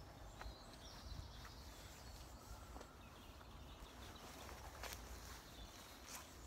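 Quiet woodland ambience: a low, steady wind rumble, faint distant bird calls in the first second or so, and a few soft ticks later on.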